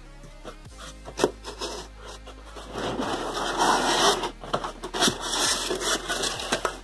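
Styrofoam packing block scraping and squeaking against the inside of a cardboard box as it is pulled out, after a few sharp knocks about a second in. Faint background music underneath.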